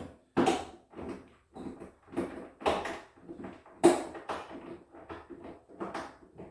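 Irregular knocks and clicks of closet-organizer parts being handled and fitted together, the loudest knock about four seconds in.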